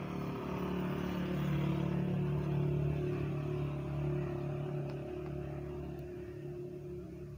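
A motor vehicle's engine running steadily off-camera with a low hum. It gets louder over the first few seconds, then fades away.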